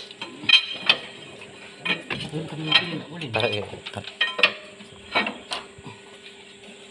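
Irregular metal-on-metal clinks and knocks, about a dozen over several seconds, from hand tools and hardware working on a Fuso truck's gearbox, over a faint steady hum.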